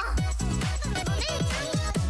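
Upbeat electronic dance music with a steady kick drum about four beats a second and sliding synth notes above it.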